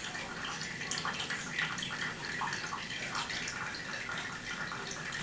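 Hot grease and meat juices from ground turkey being poured off a microwave grill pan, trickling and splashing unevenly.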